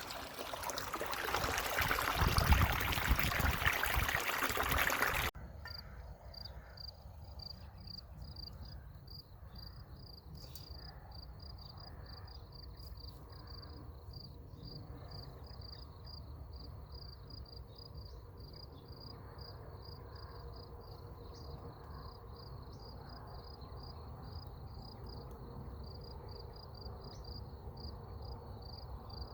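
Stream water flowing and babbling for about five seconds, then cut off abruptly. A much quieter scene follows, with insects chirping in a steady, even high-pitched pulse.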